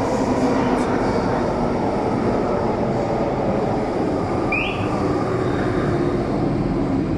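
MTR M-Train electric multiple unit running past into an underground platform: a steady loud rumble of wheels on rail and running gear, echoing in the station box. There is a brief high squeal about four and a half seconds in.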